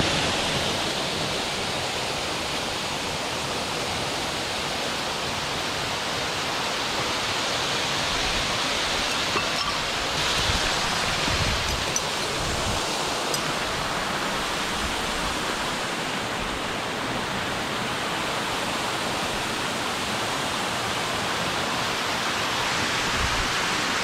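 Waterfall cascading down a steep rock face, a steady, unbroken rushing of falling water.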